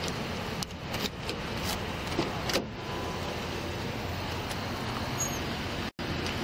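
A Pontiac's car door being opened by its outside handle, with a few sharp clicks and knocks of the handle and latch between about one and two and a half seconds in. Steady passing-traffic noise runs underneath.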